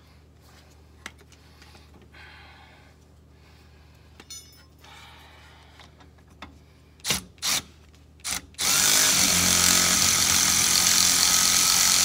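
Cordless ratchet spinning a brake caliper bolt in, running steadily for about four seconds from near the end. A few short knocks come just before it, as the socket is fitted onto the bolt.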